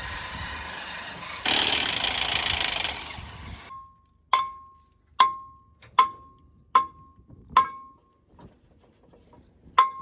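A power tool running with a harsh, rasping noise that gets louder and then fades out, followed by sharp metal-on-metal strikes, each ringing briefly at one pitch: five blows about a second apart, then one more near the end.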